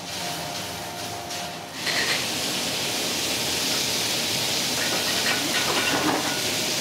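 Yakisoba noodles and pork belly slices sizzling on a hot iron griddle: a steady hiss that grows much louder about two seconds in. A few light clicks of the spatula sound near the end.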